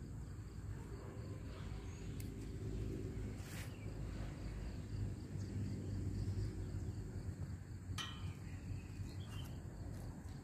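Steady low rumble of wind on the microphone, with a few faint clicks and knocks scattered through it, the sharpest about eight seconds in.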